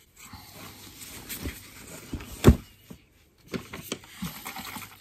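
Handling noise: disposable plastic gloves rustling and bottles being picked up, with a few short squeaks and one sharp knock about two and a half seconds in.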